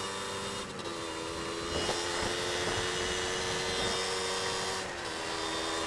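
Tuned Suzuki Satria 120R two-stroke engine running at a steady cruising speed, mixed with rushing wind. Its note rises slightly a couple of seconds in and eases back down near the end.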